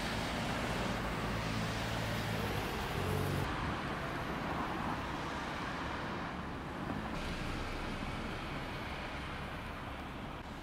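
Road traffic: steady noise of cars passing on a town street, with a vehicle engine's low hum for the first three seconds or so.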